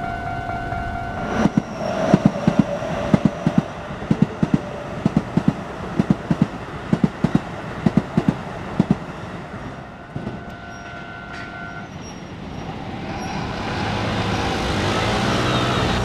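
Train passing over a level crossing: its wheels clack over the rail joints in quick pairs, about two or three a second, for some eight seconds. The crossing's warning signal sounds as a steady two-note tone at the start and again until about twelve seconds in, then stops. Near the end an engine's noise swells and rises as road traffic moves off.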